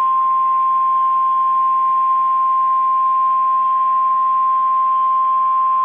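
NOAA Weather Radio alert tone: one steady high-pitched tone near 1 kHz, held without a break. It is the attention signal that announces an incoming National Weather Service warning.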